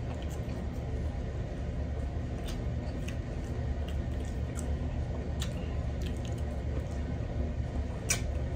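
Close-miked eating sounds: wet smacks and small clicks of chewing, and of fingers picking through a bowl of shrimp and broccoli in garlic butter sauce, over a steady low hum, with one sharper click near the end.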